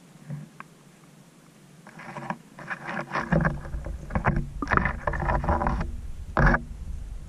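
A fish trap holding roach being handled in a rowboat: irregular splashing, clatter and knocks that start about two seconds in, with one sharp knock near the end.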